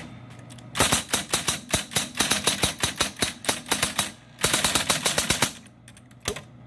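Smith-Corona Cornet electric typewriter being typed on: quick runs of key strikes, several a second, with a short pause about four seconds in and a few single strikes near the end, over the steady hum of its running motor.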